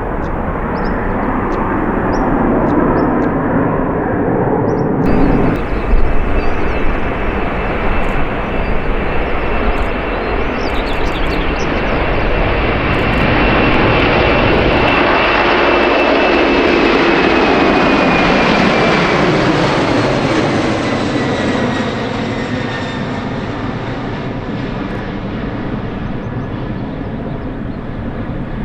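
Engines of a large fixed-wing aircraft passing close by, a steady noise with a high whine that slowly falls in pitch. It is loudest in the middle and eases off in the last few seconds.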